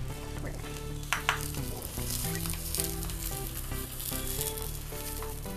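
Oil sizzling on a hot tawa under a banana-leaf parcel of marinated fish: a steady frying hiss.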